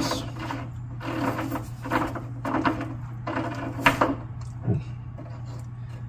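Screw-in electric water heater heating element being unscrewed from its tank port: a series of short rough metal scraping strokes from the threads, with a sharp click about four seconds in, over a steady low hum. The element is the faulty one that was tripping the breaker.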